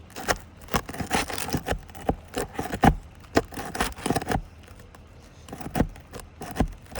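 Metal pry tool scraping and clicking under asphalt roof shingles, working a roofing nail loose: a quick, irregular series of scrapes and knocks, with a short lull a little past the middle.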